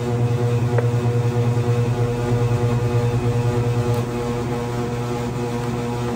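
Gelato batch freezer running with a steady electric motor hum as it discharges a finished batch of gelato. About four seconds in there is a click, and the hum turns smoother and slightly quieter.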